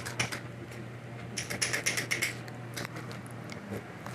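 Light clicks and taps of kitchen utensils against dishes, in a quick cluster about a second and a half in, over a steady low hum.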